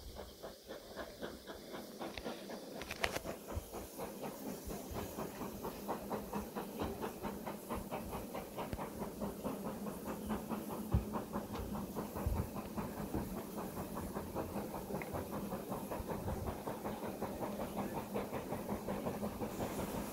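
BR Standard Class 4 2-6-4T steam tank engine 80136 and its train running, heard from the coach behind the engine: a fast, even beat of about four or five a second over the rumble of the wheels and a hiss of steam, with one sharper knock about eleven seconds in.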